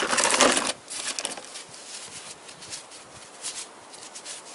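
Hand-work noise around the flywheel: a short, loud scraping rustle at the start, then a few faint clicks and taps.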